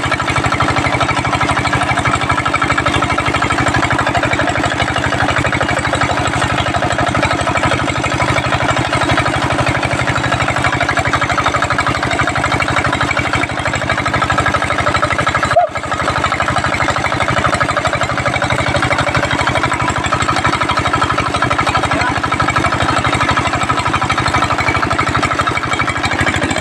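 Small diesel engine running steadily, belt-driving a centrifugal water pump that draws from a tube well, with the rush of a strong jet of water pouring from the 4-inch outlet. The sound briefly drops out once a little past halfway.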